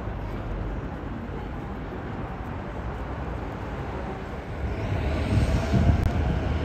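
Steady city background rumble, then from about two-thirds of the way in the growing rumble and wheel noise of a JR Chuo-Sobu Line local electric train running along the line, with a faint steady whine.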